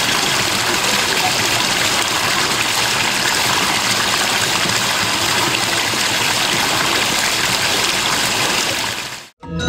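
Steady rush of running water, like a stream, with a constant even sound. It fades out near the end, and music with mallet percussion starts right at the close.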